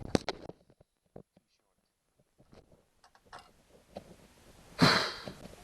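Handling noise of metal bolts and tools: a few light clicks and taps, then a brief louder rustling scrape near the end.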